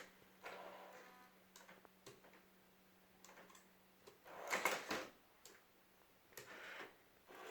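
Faint electronic chirps and a warbling beep from an R2-D2 sound-effects accessory, the loudest about four and a half seconds in, with small clicks between them and a faint steady hum.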